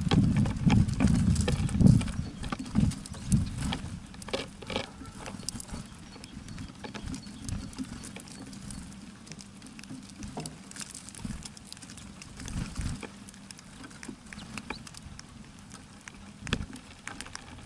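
Birds pecking and hopping on a wooden feeder: a quick, irregular pattering of taps and knocks, loudest and densest in the first few seconds, then sparser and quieter.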